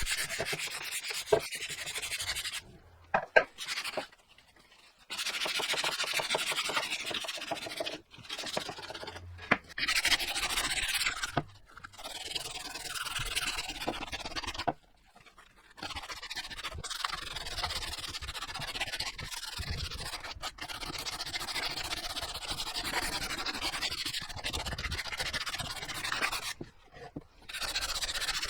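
A wooden axe handle being sanded to take the roughness off: steady rubbing and scraping in long stretches, broken by several short pauses, with a few sharp knocks in the first few seconds.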